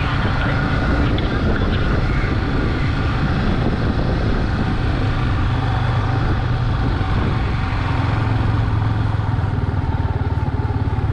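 Yamaha R15 single-cylinder motorcycle engine running steadily while the bike rolls slowly, heard from the rider's seat.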